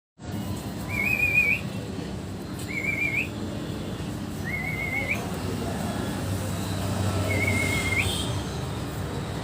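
Four short whistled notes, each wavering and ending in a quick upward flick, spaced a second or two apart over a steady low rumble.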